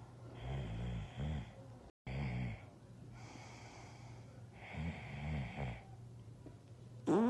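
A person snoring: a run of low, rasping snores, each about half a second to a second long, with quieter gaps of breathing between. Right at the very end a sudden, much louder low drawn-out tone begins.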